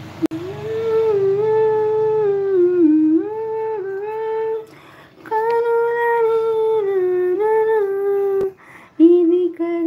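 A woman humming a tune in long held notes that step up and down, breaking off briefly about five seconds in and again near the end. A sharp click comes just after the start.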